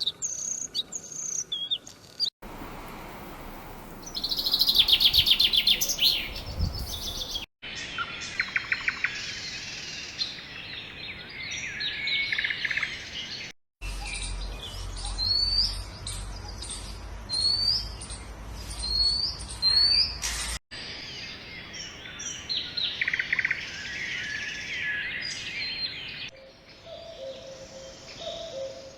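Several different birds singing and chirping, in short clips spliced together with abrupt cuts every few seconds: trills, rapid chirps and repeated rising whistles.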